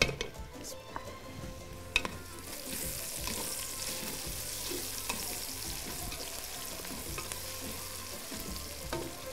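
Chopped onions with garlic and green chilli frying in hot oil in an aluminium pot, stirred with a wooden spatula. A couple of sharp knocks of the spatula on the pot come early. The sizzling swells about two seconds in and then holds steady.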